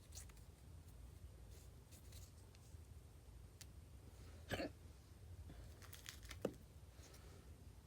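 A woman hiccuping twice, about two seconds apart, each a short sharp hic, against faint scattered clicks and scratches.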